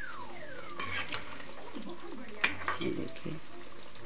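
Cauliflower pakoras sizzling as they deep-fry in hot oil in an iron kadhai, with a slotted metal spoon stirring them and knocking against the pan a few times, around one and two and a half seconds in.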